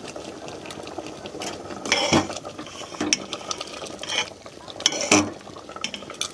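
Steel ladle stirring and scooping boiling spinach dal in an aluminium handi, with a handful of sharp metal clinks and scrapes against the pot.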